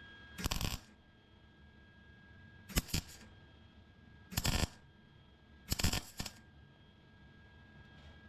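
MIG (wire-feed) welder laying four short tack welds on a crack in a car's sheet-steel firewall: four brief bursts of arc crackle, each under half a second, a second or two apart. The welds are kept short so the metal doesn't get too hot and set the sound deadening behind it alight.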